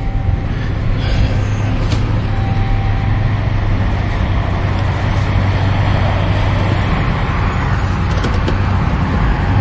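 Semi truck's diesel engine running steadily as the truck creeps along at low speed, with road noise. A faint high squeal comes in about seven seconds in.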